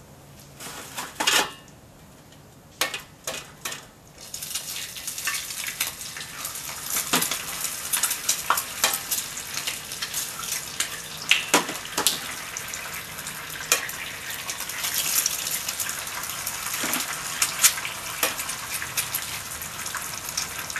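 Eggs frying in hot bacon grease in a cast iron skillet: a dense sizzle and crackle that starts about four seconds in, when the first egg hits the fat. Sharp knocks and spattering pops run over it as more eggs are cracked into the pan.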